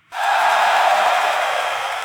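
A crowd breaks into loud cheering and yelling, starting suddenly and slowly fading.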